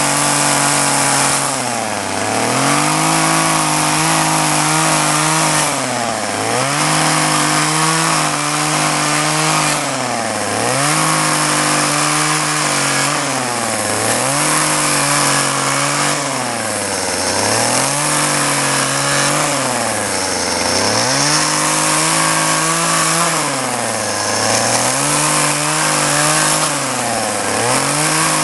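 Echo two-stroke carving chainsaw running at high revs while carving beech wood. Its engine speed dips and recovers about every four seconds.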